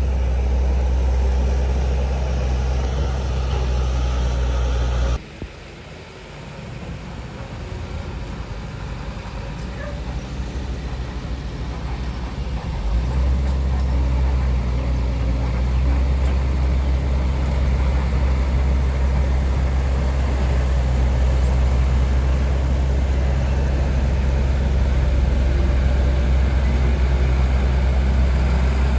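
Heavy diesel machinery engine running with a steady low hum. About five seconds in the sound drops away abruptly, then builds back up over several seconds to a steady run.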